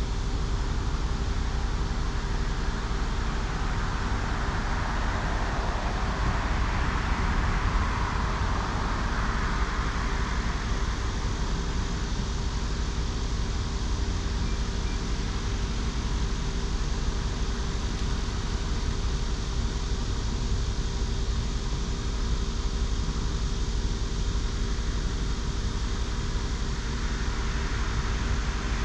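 Highway traffic: a steady low rumble, with one vehicle's tyre noise swelling and fading as it passes about a quarter of the way in, and another vehicle approaching near the end.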